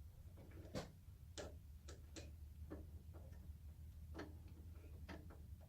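Faint, irregular light clicks and taps, about a dozen, as a saw blade's height is adjusted by hand, over a low steady hum.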